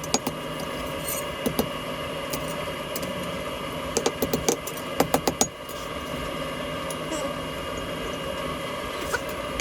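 A steady machine hum with fixed tones runs throughout, typical of a blacksmith's shop forge running. Over it come sharp metal clinks in small clusters: once about a second and a half in, two quick groups around four and five seconds in, and one near the end.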